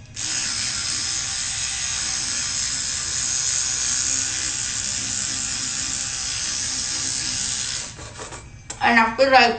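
Electric toothbrush running steadily in the mouth while brushing, a high buzzing hiss that cuts off suddenly about eight seconds in. A short burst of voice follows near the end.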